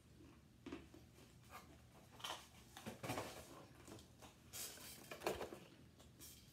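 Quiet handling sounds of cardboard takeout boxes being picked up and moved on a table: a few soft knocks and rustles, the louder ones near the middle and about five seconds in.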